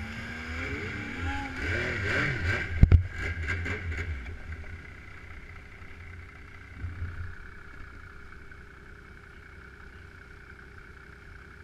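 Snowmobile engine revving up and down in rising and falling swells, with two sharp knocks about three seconds in, then running steadily at a lower level.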